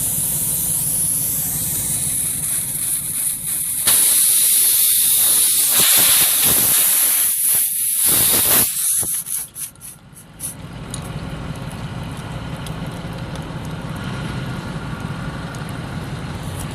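Compressed air hissing out of a punctured tire around the plug insertion tool as a repair plug is pushed into the hole. A sudden, louder rush of air starts about four seconds in and lasts several seconds. It then dies down to a softer, steadier hiss.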